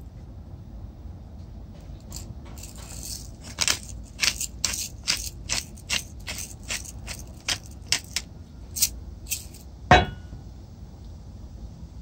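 Pepper grinder cracking black pepper in quick, even twists, about three crunching strokes a second for several seconds. A single sharp knock comes near the end.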